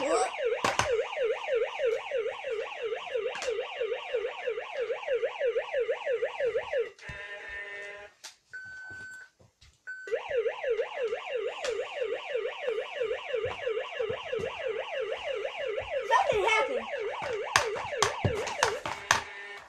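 Electronic siren of a battery-powered Hess toy truck, a fast rising-and-falling wail about four times a second. It cuts out about seven seconds in, gives way to a short different tone and two brief beeps, then starts again about three seconds later. Light knocks near the end.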